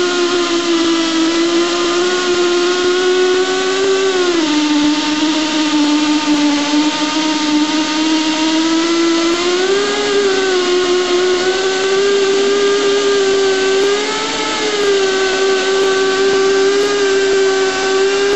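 Esco Prepzilla pipe end prep machine running as its tool bit cuts a bevel into a steel pipe end, a steady whine. The pitch drops about four seconds in and climbs back up around ten seconds.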